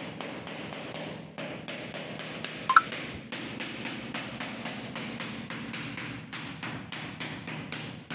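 Rubber mallet tapping a ceramic floor tile again and again, about three or four light taps a second, bedding it into tile adhesive. One sharp ringing clink stands out about three seconds in.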